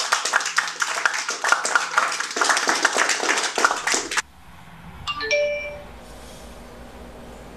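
Applause, a dense patter of hand-claps, stops abruptly about four seconds in. About a second later a mobile phone's text-message alert chimes, a short run of a few tones.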